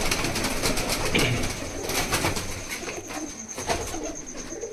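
Domestic pigeons beating their wings in a rapid flurry as one is caught by hand, with scuffling on the loft floor.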